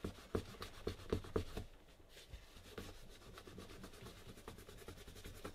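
A paper towel wet with adhesive remover is rubbed back and forth over a Lumix compact camera's body, wiping off the gluey residue of its broken-down rubber coating. A few louder scrubbing strokes come in the first second and a half, then fainter steady rubbing.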